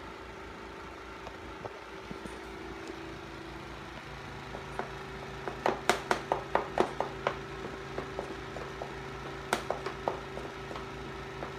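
Steady hum of a running room appliance with a regular low pulse. About six seconds in, a quick run of sharp clicks and rattles comes from the dog shifting in its metal wire crate, and a few more follow near the ten-second mark.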